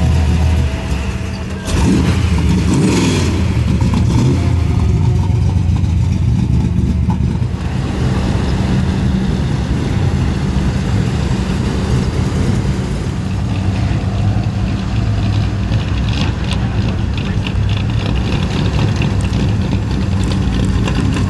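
Engines of several vintage hot rods and classic cars rumbling at low speed as they roll by one after another, with a brief rev rising and falling about two seconds in.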